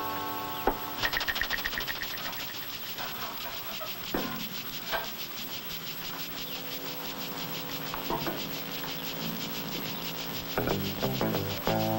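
Film soundtrack music: a fast, even scraping rhythm over held low notes.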